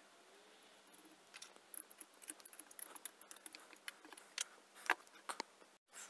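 Small metal hardware and circuit boards being handled: irregular light clicks and taps of nuts, washers and steel angle brackets against the connector boards and cells. The clicks start about a second and a half in and stop abruptly just before the end.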